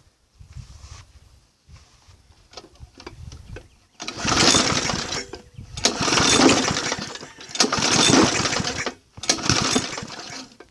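Briggs & Stratton lawn mower engine being pull-started four times in a row from about four seconds in, each pull briefly cranking it over without it running on. It is being tried on spray oil in place of petrol.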